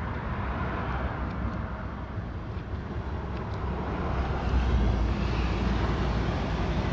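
Steady low rumble of outdoor background noise, such as distant traffic, growing a little louder about four and a half seconds in. A few faint clicks in the first half, from scissors snipping a mustache.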